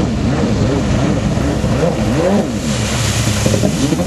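Two-stroke freestyle jet ski engine, a standard-stroke power-valve motor with a Power Factor Products exhaust, revved up and down in quick repeated blips, with one longer rev about two seconds in. A rushing hiss comes in near the end.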